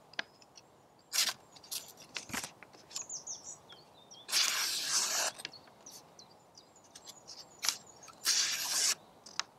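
Stainless bushcraft knife slicing through a sheet of paper in an edge-sharpness test: two cuts of about a second each, about four seconds in and near the end, with a few short ticks of the blade on the paper between them. A small bird chirps briefly about three seconds in.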